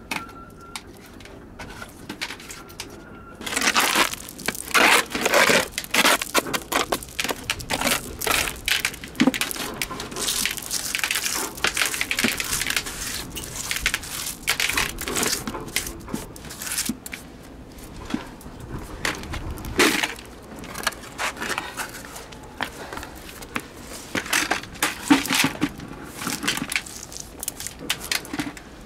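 A wooden scraper and gloved hand scraping small sea snails off a rough concrete breakwater block, the snails rattling down into a plastic bucket. After a quiet first three seconds or so, the scraping comes in a long run of repeated, irregular strokes.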